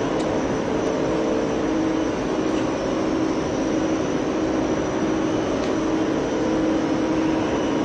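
Gas-fired tunnel kiln's fans and burners running: a steady rushing noise with a constant low hum.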